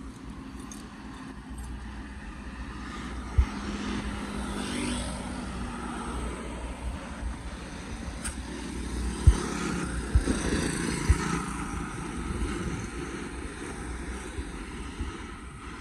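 Road traffic passing on a wide street: one vehicle goes by with a gliding engine note about four seconds in, and more pass around ten seconds. A few dull low thumps come in between, the loudest about nine seconds in.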